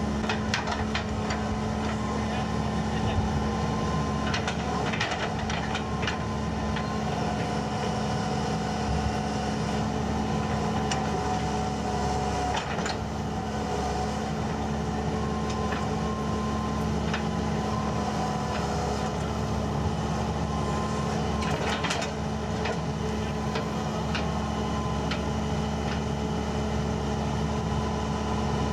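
Engine of a tracked heavy machine running steadily, with scattered sharp knocks and cracks.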